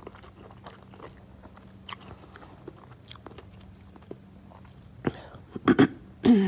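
A person chewing food close to the microphone, with soft wet clicks of the mouth. Near the end come a few much louder mouth sounds, the last one dropping in pitch.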